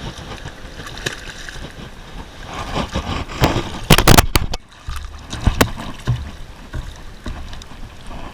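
Water washing and splashing with a few sharp slaps and knocks, the loudest about four seconds in, as a hooked fish is brought in at the surface.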